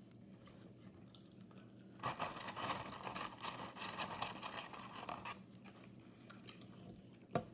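Close-up eating sounds: about three seconds of dense, crackly crunching and chewing in the middle, then a single sharp click near the end, over a steady low background hum.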